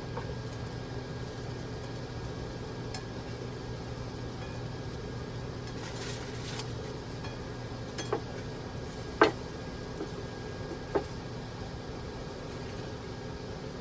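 Steady hum in a small kitchen, with a few sharp clinks and knocks of dishes and utensils about eight, nine and eleven seconds in; the one near nine seconds is the loudest.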